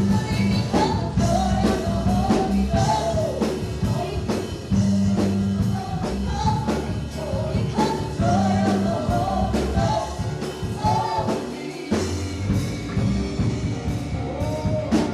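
Live gospel worship band playing with a singer: drums keeping a steady beat under bass and a sung melody.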